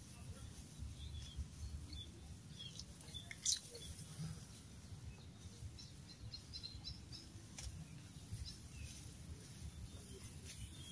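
Faint outdoor field ambience: scattered small bird chirps over a steady low rumble, with one sharp click about three and a half seconds in.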